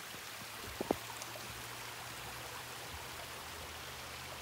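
Steady running water of a small stream, an even hiss, with a couple of short knocks about a second in.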